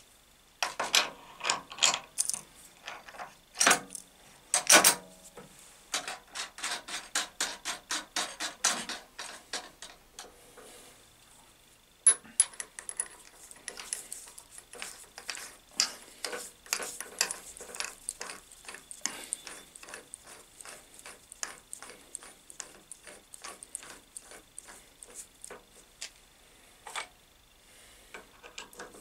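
Naerok mill/drill spindle and chuck being turned slowly by hand while the chuck's runout is read on a dial indicator. The drive in the head gives a long run of small mechanical clicks, about three or four a second, broken by a short pause about ten seconds in. A few louder knocks come in the first five seconds.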